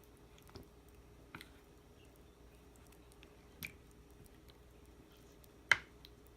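A few short, scattered clicks and light taps over a faint steady hum, the sharpest one about six seconds in.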